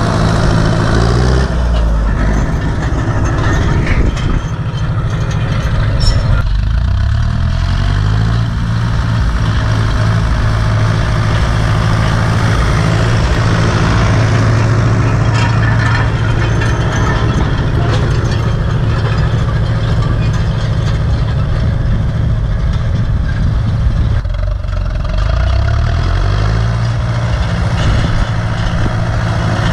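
Turbocharged Ursus C-360 tractor's four-cylinder diesel engine running hard while pulling a land roller. Its revs sag and climb back up twice, about six seconds in and again near the end.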